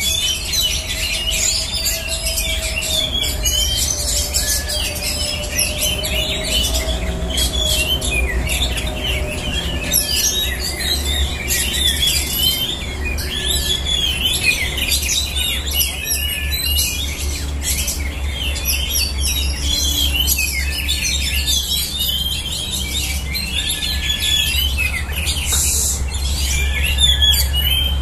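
A chorus of caged oriental magpie-robins (kacer) singing at once, dense overlapping chirps and whistles, over a steady low rumble.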